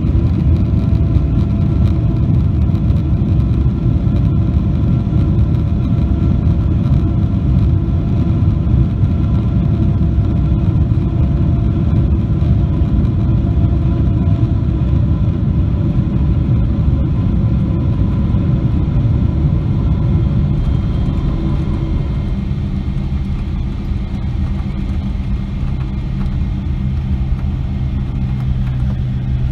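Cabin noise of a Boeing 777-300ER heard beside the wing as it slows on the runway after landing: the GE90 engines and the wheels on the runway make a loud, steady rumble that slowly dies down. A couple of faint, steady whining tones fade out partway through.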